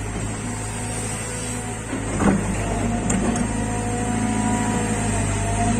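Caterpillar 320 GC excavator at work: its diesel engine runs steadily under a thin hydraulic whine. There is a brief, louder knock about two seconds in as the bucket works the soil pile.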